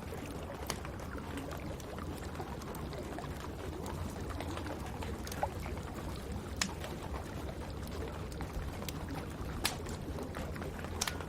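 Wood fire crackling, with a handful of sharp pops over a steady hiss of falling rain.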